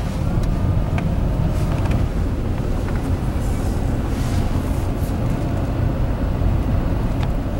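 Car driving at low speed, heard from inside the cabin: a steady low rumble of engine and road noise, with a few faint clicks.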